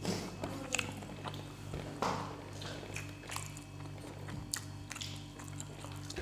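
Close-miked eating sounds: chewing and mouth smacks with scattered short clicks as rice and fish are eaten by hand, over a steady low hum.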